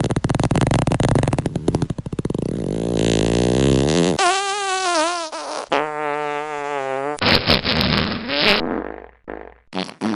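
A run of fart sound effects one after another. First comes a long rattling one, then a wavering pitched one and a steady buzzing one, then a higher sputtering one, with a couple of short ones near the end.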